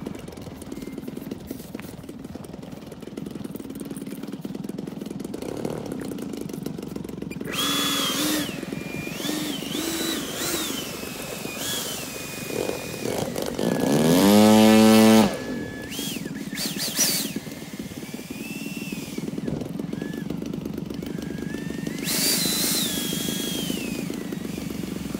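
E-flite F-16 electric ducted-fan RC jet taxiing, its fan whining up and down in short throttle blips. About halfway through, a loud whine rises in pitch for a second or so.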